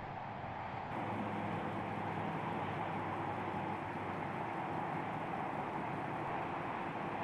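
Steady rushing noise with a faint low hum under it; about a second in it turns slightly louder and brighter.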